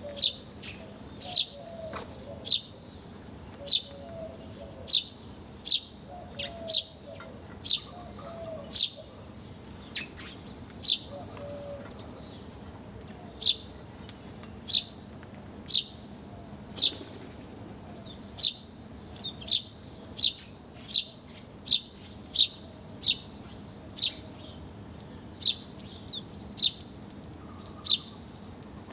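A bird chirping over and over: short, sharp, high notes that drop in pitch, about one a second with a few brief pauses. Fainter, lower bird calls sound beneath them in the first half.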